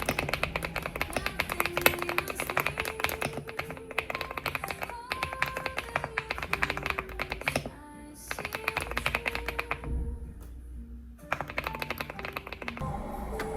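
Rapid typing on a mechanical keyboard, a dense run of clicky keystrokes that pauses briefly twice in the second half.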